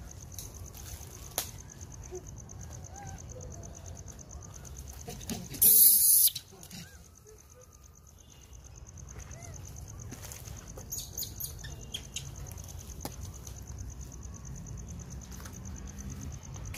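Monkeys rummaging in plastic-wrapped biscuit packets: scattered crinkles and taps over a steady low background, with one loud rustle lasting about half a second roughly six seconds in.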